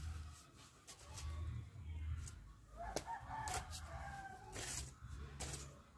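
A rooster crows once, starting about three seconds in and lasting about a second, over several sharp scrapes of a shovel digging into hard soil.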